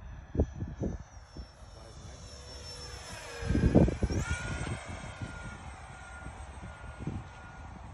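High-pitched whine of a model jet's 50mm electric ducted fan as it flies past, its pitch dropping as it goes by, with the loudest rush about three and a half seconds in.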